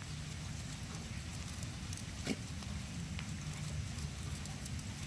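Light rain pattering with scattered faint ticks over a steady low rumble of wind on the microphone, and one sharper tap a little over two seconds in.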